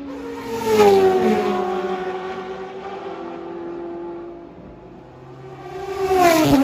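Four-rotor Mazda rotary race car engine at speed: a loud pass about a second in with the pitch dropping as it goes away, then another loud approach and pass near the end with a sharp drop in pitch.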